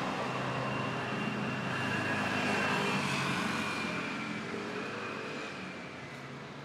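A vehicle passing by: a steady rushing noise that grows to its loudest about two to three seconds in, then slowly fades away.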